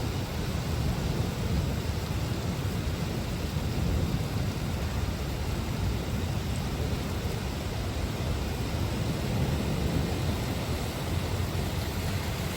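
Heavy rain pouring steadily: an even hiss with a low rumble underneath.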